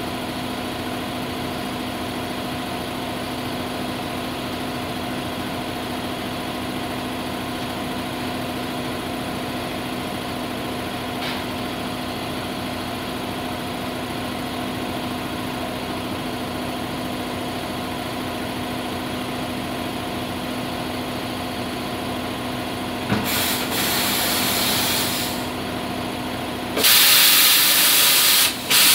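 A steady motor drone runs under everything. About 23 seconds in, compressed air starts hissing for a couple of seconds, then near the end comes a much louder hiss of air in short blasts as the tire on the Coats tire changer is worked.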